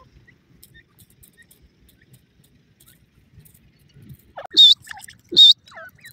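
Grey francolin calling: loud, sharp, high-pitched notes repeated about every 0.8 s, starting about four and a half seconds in after a quiet stretch.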